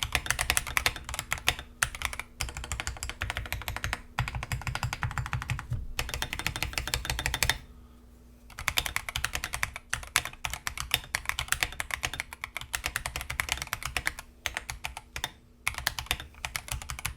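Fast typing on a stock Akko 3098B mechanical keyboard with its factory Akko Jelly White linear switches (light, 35 g), resting on a desk mat: a dense run of keystroke clacks, with a pause of about a second about halfway through.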